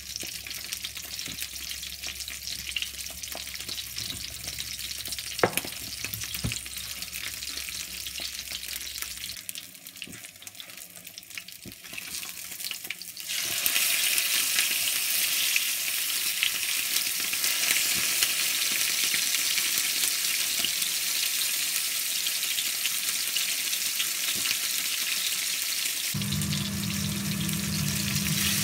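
Salmon fillets frying skin-side down in hot oil in a nonstick pan: a quiet, steady sizzle that grows much louder about halfway through as the skin browns. A steady low hum joins near the end.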